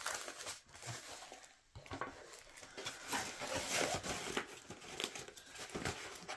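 Diamond-painting canvas crinkling and rustling as it is rolled up and handled, with soft, irregular crackles.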